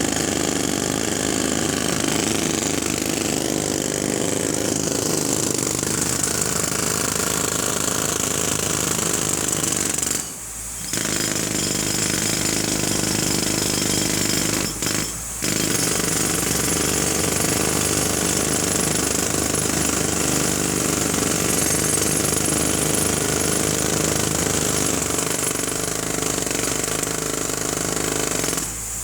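Jackhammer hammering continuously and loudly, with brief breaks about ten seconds in and twice around fifteen seconds.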